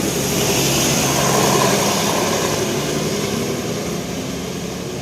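A bus driving past close by, its engine and tyre noise swelling to loudest about a second and a half in, then slowly fading.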